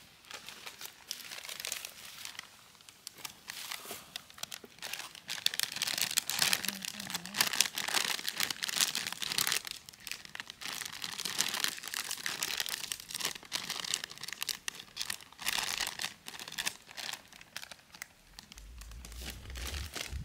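Close, irregular crinkling and rustling of something being handled, like a bag or packaging being crumpled. It is busiest and loudest from about five seconds in.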